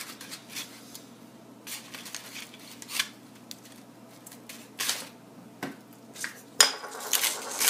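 A metal fork scraping and clicking against a baked potato, its aluminium foil wrap and a paper plate as butter is worked in, in short separate strokes. Near the end a louder, continuous rasping begins.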